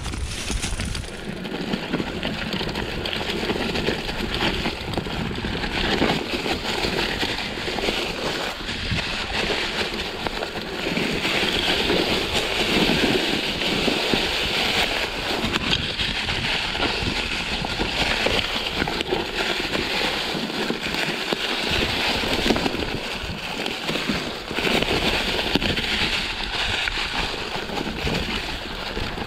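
Steady rushing, rattling noise of moving along a rough trail, with wind on the camera microphone, its level rising and falling unevenly.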